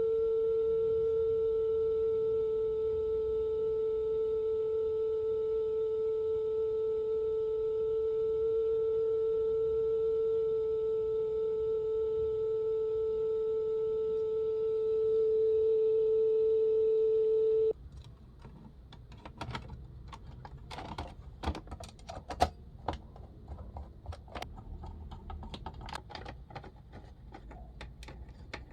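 A steady single-pitched test tone played from the restored toy cassette player. It cuts off suddenly about 18 seconds in. Scattered clicks and clatter from handling the player and its buttons follow.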